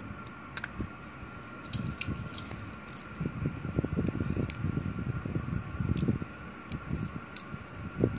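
Plastic Lego bricks clicking and clattering as they are handled and pressed together on a tabletop, with scattered sharp clicks and soft rubbing and handling noise. A faint steady hum runs underneath.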